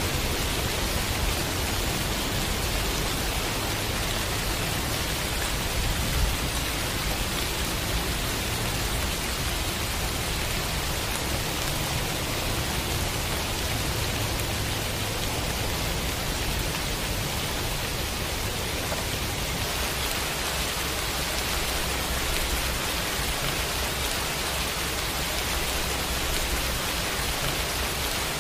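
Steady rain falling on trees and leaves: an even, unbroken hiss with a low rumble underneath.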